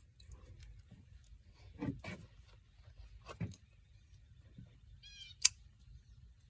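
Light clicks and knocks of a plastic fishing tackle box being opened and its lures handled, the sharpest click about five seconds in. A brief high, wavering call comes just before it.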